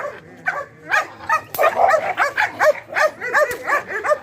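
A dog barking rapidly: a long run of short, sharp barks, several a second, broken by brief pauses.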